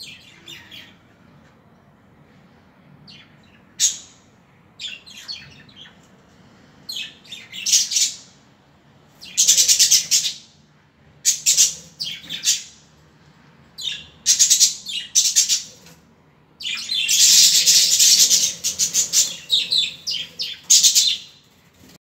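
Budgerigars chirping and chattering in short bursts. The bursts come more often and run longer as it goes on, ending in an almost unbroken stretch of chatter for the last five seconds.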